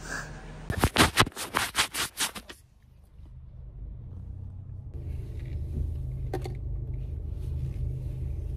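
A quick run of scraping, rustling noises for about two seconds, then the steady low rumble of a car's cabin while it is being driven.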